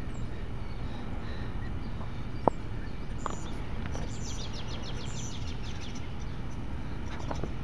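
Birds chirping over a steady low rumble of outdoor ambience. A quick run of high chirps comes about four to five and a half seconds in, and a single sharp click about two and a half seconds in.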